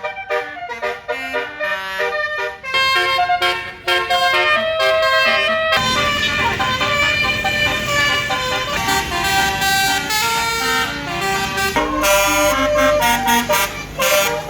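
Tour bus basuri musical air horn playing a quick melody of short, changing horn notes. From about six seconds in, engine and street noise rise underneath.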